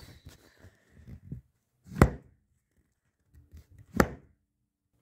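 Two sharp thumps about two seconds apart, one about two seconds in and one near the end, with faint clicks and scrapes between them.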